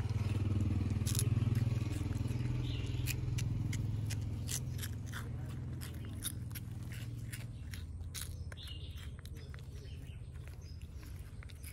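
Baby macaque chewing food with wet open-mouthed smacking, heard as scattered sharp clicks. Under it runs a low steady rumble that fades about eight seconds in.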